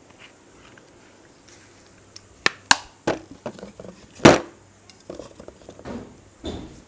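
A barber's hands striking a client's head in an Indian head massage: a few sharp smacks from about two and a half seconds in, the loudest a little past four seconds, then a run of softer pats.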